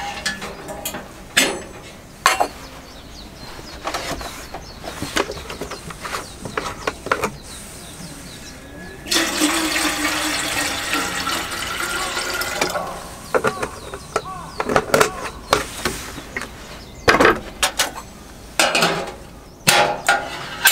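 Water poured from a plastic jug into a metal kettle for about three and a half seconds, starting about nine seconds in. Before and after it, short clinks and knocks as the kettle and its lid are handled on the camp stove.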